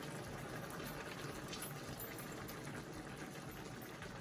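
Tomato, onion and cashew sauce simmering in a pan on the stove: a steady, faint bubbling with a few small pops.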